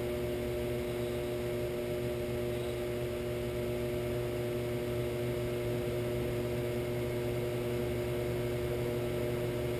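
Shopsmith 10ER driven by a Leeson 3/4 HP DC motor on its speed controller, running with a steady hum that holds constant in pitch. It runs nice and smooth, with no knock or wobble, after its pulleys have been trued.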